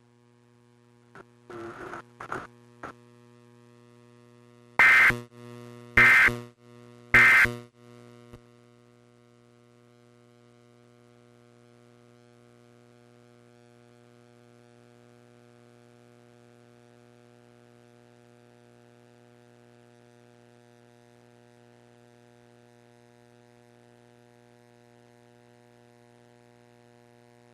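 Three short, harsh digital data bursts about a second apart: the end-of-message tones of an Emergency Alert System broadcast, closing the test. A few fainter short blips come before them. A steady low electrical hum with buzzing overtones sounds under the bursts and carries on after them.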